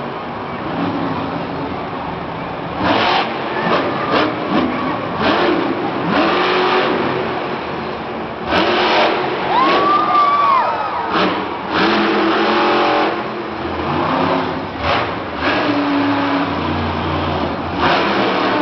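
Monster truck engine revving hard in repeated bursts, with pitch swooping up and down about ten seconds in.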